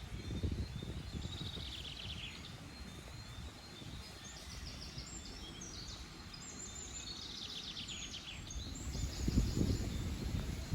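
A songbird singing several short phrases of rapid repeated notes, some sliding downward, over a gusty low rumble of wind that grows louder near the end.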